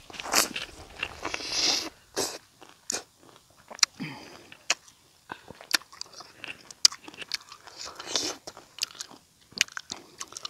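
Biting into and chewing a peeled lemon mixed with red chilli and salt, heard close on a clip-on microphone. There is a string of sharp, irregular mouth clicks and smacks throughout.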